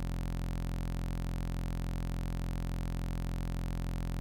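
Steady, unchanging electronic hum made of several held tones at once.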